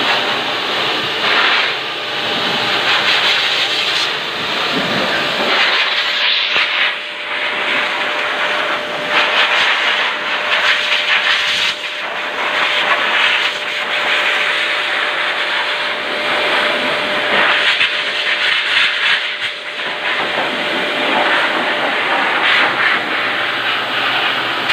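Dog grooming blower forcing air through its hose into a wet, thick-coated dog's fur: a loud steady rush of air over a thin motor whine, swelling and dipping as the nozzle moves over the coat.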